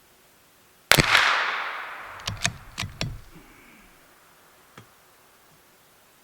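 A single shot from a CZ 457 bolt-action .22LR rifle firing a CCI Standard round, about a second in, with a long echo fading over about three seconds. Four quick clicks follow as the bolt is worked to chamber the next round, then one faint click near the end.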